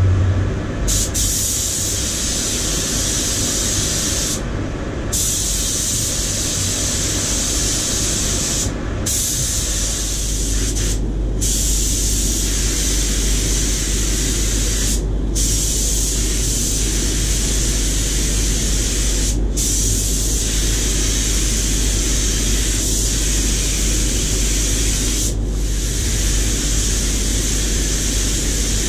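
Compressed-air paint spray gun hissing as red paint is sprayed onto a car bumper. The hiss breaks off briefly about seven times when the trigger is released. A steady low hum runs underneath.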